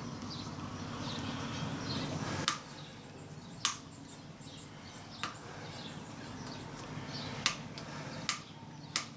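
A steady low hum that cuts off about two and a half seconds in, then a handful of scattered sharp clicks from hand tools and parts being handled during motorcycle wiring work. Faint bird chirps in the background.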